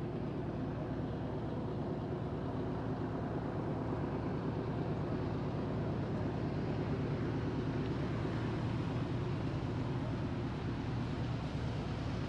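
Distant diesel freight train approaching: a steady low rumble that builds slightly.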